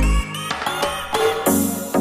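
Electronic background music: a heavy bass and drum beat drops out a quarter second in, leaving plucked pitched notes, with a bright rising hiss near the end.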